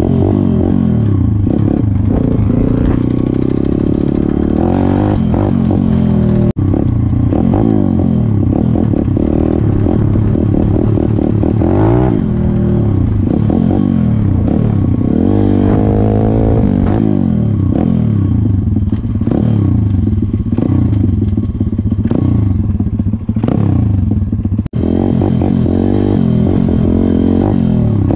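Pit bike's small single-cylinder four-stroke engine revving up and down again and again while being ridden, heard close up from the rider's helmet. The sound cuts out very briefly twice, about six seconds in and near the end.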